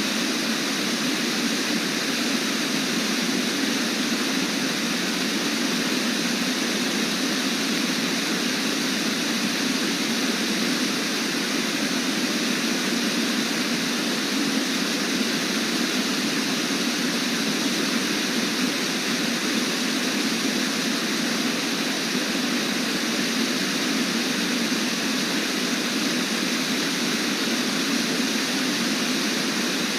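Steady, unbroken rushing roar of Brooks Falls, water pouring over the falls on the Brooks River.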